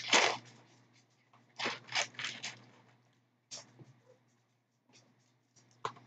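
A person chewing food close to the microphone: a few short bursts of mouth and chewing noise with silent gaps between them.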